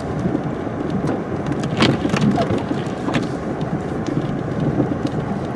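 A car driving along a snowy road: a steady low rumble of engine and tyres, with a few faint clicks.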